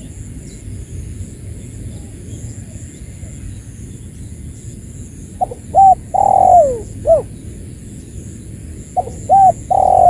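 Spotted dove (tekukur) cooing as a lure call to draw rival doves. It gives two phrases of a few short coos around one longer, falling coo: one about five seconds in, and another near the end. A low, steady background rumble lies beneath.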